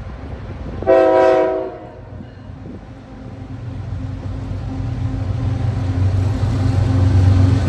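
Diesel freight locomotive horn sounding one short blast, about a second in. The locomotives' low engine rumble then grows steadily louder as the train approaches.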